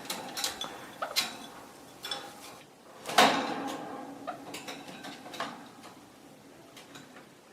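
Scattered light knocks and rattles with one louder clatter about three seconds in: a baby sun conure moving about in its temporary cage.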